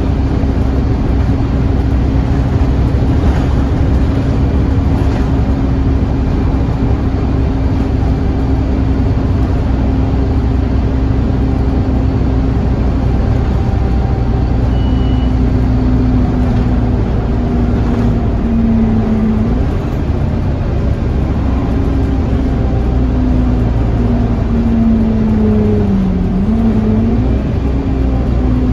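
Interior sound of a Scania N230UD OmniCity double-decker bus on the move: its five-cylinder diesel engine and drivetrain drone steadily under road noise. A whining tone holds level for the first half, then wavers and drops in pitch over the last few seconds.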